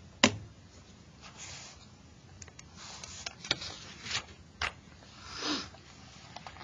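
Paper workbook pages rustling and turning over, in several soft swishes, with a sharp click near the start and a few light taps of things being handled on the desk.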